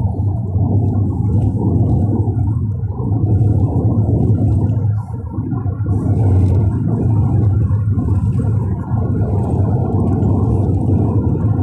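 Low, steady rumble of road and engine noise inside a moving car on a highway, with the level swelling and dipping.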